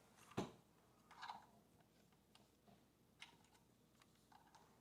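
Near silence broken by a few faint, scattered clicks and taps of handling: a keyboard and its cable being moved. The strongest tap comes less than half a second in.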